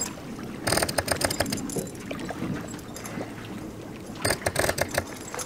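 Lake water splashing and bubbling around a diver lying face down at the surface, with two short bursts of crackling splashes, about a second in and again about three and a half seconds later.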